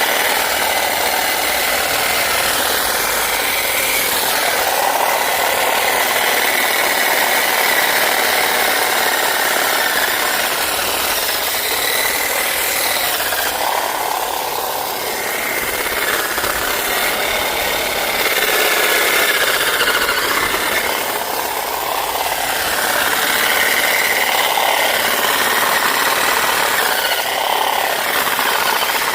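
Corded electric Black & Decker Hedge Hog hedge trimmer running continuously, its reciprocating blades cutting through hedge branches, the pitch and level wavering as it works through the growth.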